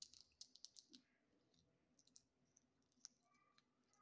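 Faint clicks and crackles of snow crab shell being cracked and picked apart by hand, a quick run of them in the first second, then a few scattered ticks.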